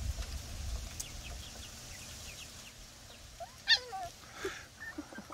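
Young chicks peeping faintly at a chain-link fence, with one short whine from a puppy trying to get into their pen about three and a half seconds in.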